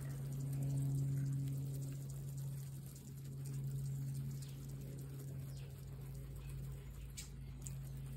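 Guinea pigs chewing fresh grass, a fine patter of small crisp crunches, over a steady low hum.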